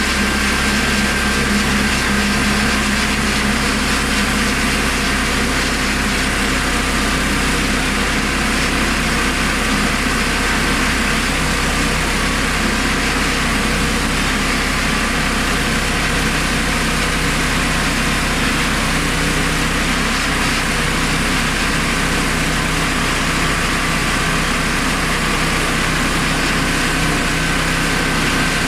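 Single-cylinder Honda GX390 13 HP petrol engine of a homemade portable sawmill running steadily at an even speed.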